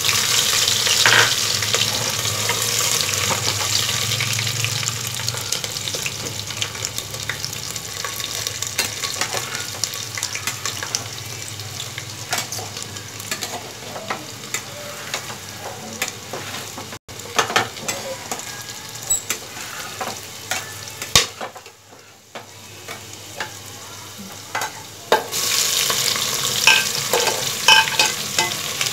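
Hot oil sizzling in a pressure cooker as thin-sliced ginger and garlic go in, loud at first and dying down over several seconds, with scattered spoon clicks and scraping from stirring. Near the end a fresh loud sizzle starts as sliced onions are tipped into the oil.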